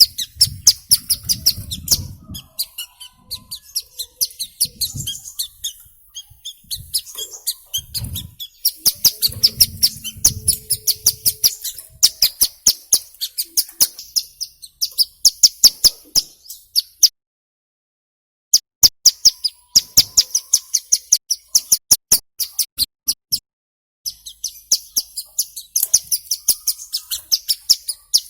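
Ciblek gunung prinia calling: fast runs of sharp, high ticking chirps, several a second, broken by short pauses.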